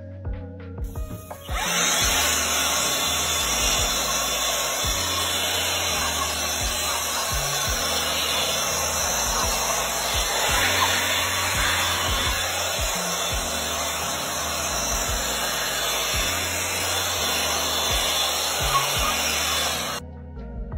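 AlloyMan 20V cordless leaf blower-vacuum running, a steady rush of air from its fan motor that switches on about a second and a half in and cuts off suddenly just before the end. Background music plays underneath.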